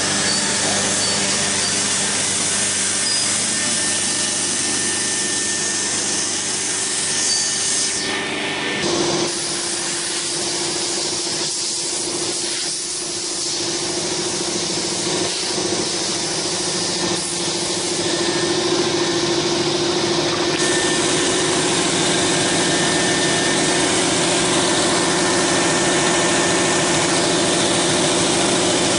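CNC router with a 4.5 kW high-speed spindle cutting decorative grooves into MDF board: a steady power-tool whine with cutting hiss. The sound shifts about nine seconds in, then settles into a steady whine.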